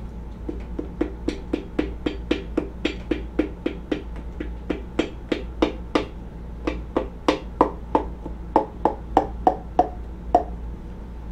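Piston and rings being tapped down through a ring compressor into the cylinder bore of a Neon SRT-4 2.4L block, struck with the butt of a mallet handle: a steady run of light knocks, about three a second. The knocks grow louder past the middle, and the later ones end in a short ring.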